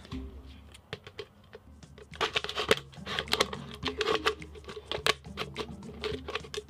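Scissors cutting into the side of a plastic Coke bottle. From about two seconds in, the stiff plastic crackles and crinkles in a quick run of sharp snaps.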